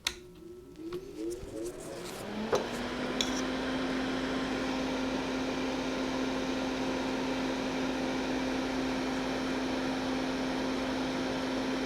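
Fume-extraction vent fan switched on with a click, its motor whine rising in pitch for about two seconds as it spins up, then running at a steady hum with a rush of air.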